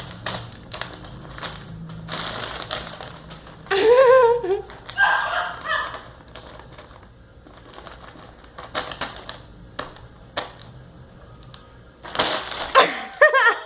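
Plastic shopping bag rustling and crinkling in irregular clicks as cats play in and with it. A short pitched call comes about four seconds in, and voice-like sounds come near the end.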